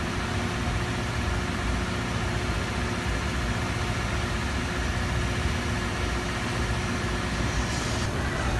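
A large engine idling steadily: a low rumble with a faint steady hum, and a brief rise in high hiss near the end.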